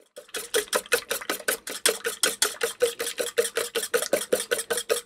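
Metal wire whisk beating an egg mixture in a nonstick saucepan: fast, even strokes, about nine a second, the wires clattering against the pan, which rings with a steady tone under them.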